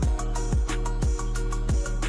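Background music with a steady beat of deep drum hits and short plucked notes over held tones.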